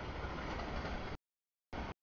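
Freight train cars rolling past, a steady rumbling rail noise. The sound cuts off abruptly about a second in and comes back only briefly near the end, with dead silence between: audio dropouts.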